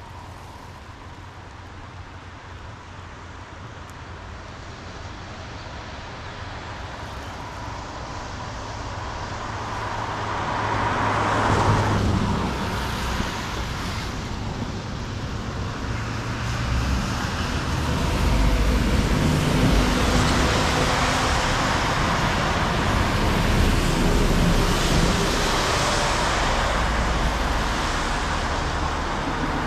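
Road traffic on a wet road below: a vehicle swells past about twelve seconds in, then the noise of passing vehicles grows louder and stays up as a steady rush with a low rumble.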